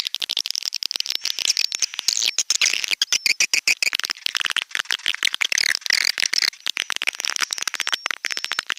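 Edible-nest swiftlets calling: a dense, continuous chatter of many fast clicks and high twittering chirps from several birds at once, a recorded swiftlet call track of the kind played to lure the birds.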